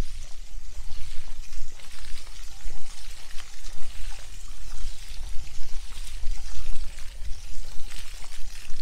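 Steady rushing, splashing water noise, with a deep irregular rumble underneath.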